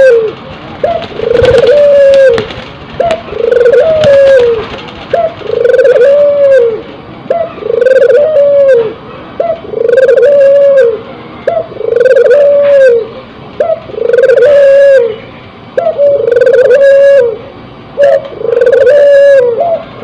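Caged Barbary dove (burung puter) cooing over and over in breeding condition. Each call is a short clipped note followed by a longer rolling coo that rises and falls, about every second and a half. A couple of light knocks come in the first few seconds.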